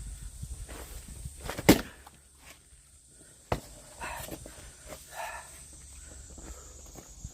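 Axe striking firewood: one loud sharp crack about one and a half seconds in, then a lighter knock about two seconds later, over faint shuffling.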